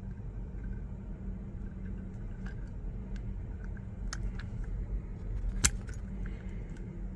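Small metallic clicks and clinks from a hand pop-rivet tool being worked on a kayak pop rivet, with one sharp click about two thirds of the way in, over a steady low hum.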